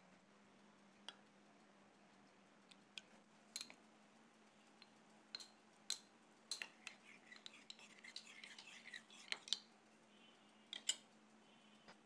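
Metal spoon clinking and scraping against a small bowl while stirring cornflour and water into a slurry: scattered faint clicks that grow busier about eight seconds in, with a couple of sharper clinks near the end.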